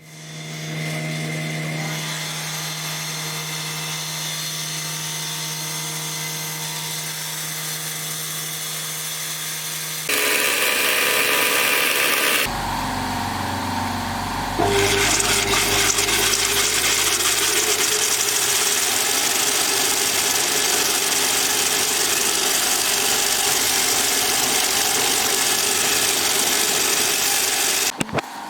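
Workshop power tools working aluminium stock in several stretches. There is a steady running hum for about ten seconds, then louder, harsher machining noise from about ten seconds in, which stops just before the end.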